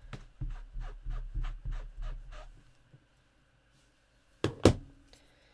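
Stamping tools knocked on the craft desk: a run of about eight soft, dull taps in quick succession, then, after a pause, two sharp knocks close together near the end, the loudest sounds.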